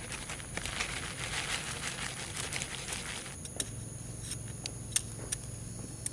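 Rustling and crinkling as fertilizer is handled and added to a plant, with a few sharp clicks in the second half, the loudest about five seconds in.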